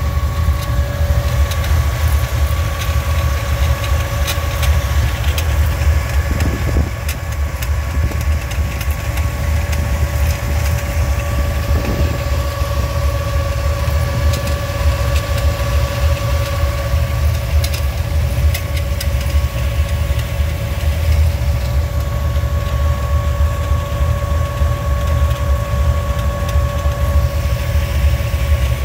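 Buick 455 V8 idling, with a steady high-pitched whine over it from its three-day-new 140-amp one-wire alternator, a noise the owner likens to chickens.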